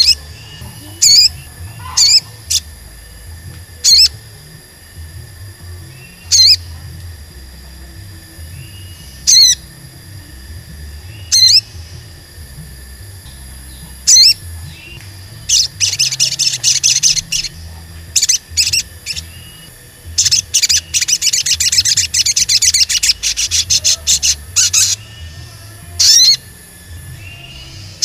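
Male olive-backed sunbird (sogon) calling: sharp, high single "cuit" chirps every two to three seconds, then bursts of fast twittering song about halfway through and again over the last third, ending with a lone chirp. This is the bird in full voice (gacor), the "cuit cuit" calling used to provoke other sunbirds into answering.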